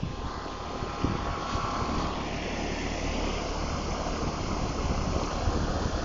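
2014 Grand Aire 2-ton, 13 SEER straight-cool central air conditioner condenser running: a steady rush of air from the condenser fan over a low hum.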